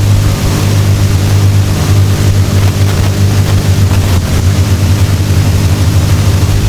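Loud, steady low-pitched drone with a rough hiss over it, holding an even level throughout.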